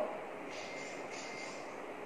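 Steady low background hiss of room noise, with no distinct event.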